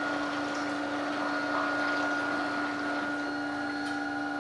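A steady, even motor hum over a wash of churning water.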